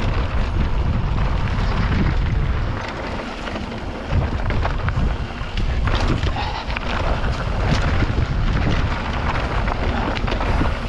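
Wind buffeting the action-camera microphone with a steady low rumble from a mountain bike riding over a trail, with scattered rattles and knocks.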